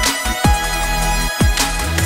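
Electronic dance music with deep sustained bass notes and booming kick-drum hits that drop in pitch.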